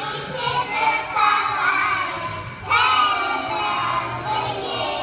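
A group of young children singing a song together, with a short break between phrases partway through.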